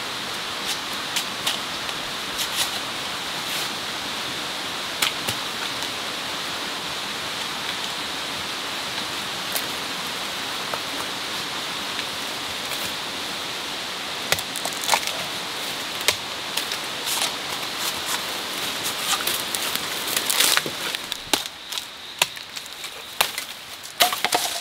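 Scattered sharp knocks and snaps over a steady rushing hiss. The knocks come more often from about halfway through, and the hiss drops away near the end.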